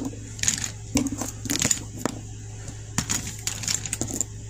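Makeup items being handled: irregular small clicks and rattles of plastic cases and packaging, over a steady low hum.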